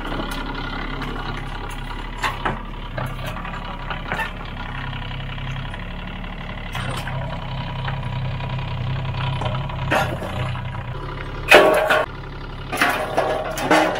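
Kubota U-10 mini excavator's diesel engine running steadily, with scattered knocks as it comes down off the truck. Near the end come two loud bursts of metallic clattering as the aluminium loading ramps are handled.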